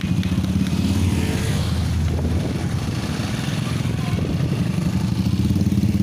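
Motorcycle engine running steadily close by: a low, fast-pulsing rumble.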